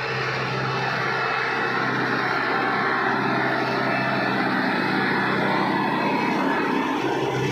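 Kubota MU5501 tractor's diesel engine running steadily under load as it drives a rotavator through deep, wet mud.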